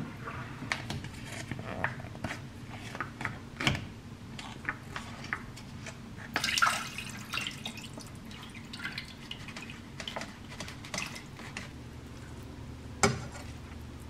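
Liquid sauce being squeezed from a packet into a stainless steel pot, with scattered small drips and ticks and a louder wet rustling burst about six and a half seconds in. A single sharp knock against the pot comes near the end.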